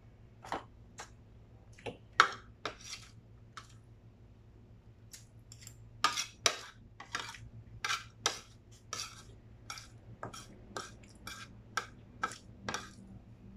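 Metal spoon clinking and scraping against a ceramic plate while eating: short, sharp clicks and scrapes in irregular clusters.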